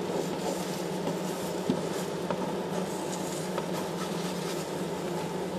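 Egg whites sizzling steadily in a frying pan, with a few light taps of a spatula against the pan.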